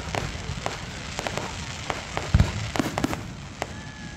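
Fireworks going off: a string of irregular sharp pops and crackles, with one deeper boom about two and a half seconds in.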